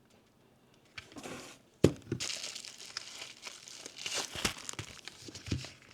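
Plastic packaging being crinkled and rustled by hand, with a sharp click just under two seconds in.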